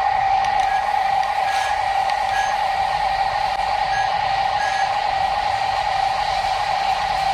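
RC construction machine running: a steady, even whine with a continuous noise underneath, and short faint high tones cutting in now and then.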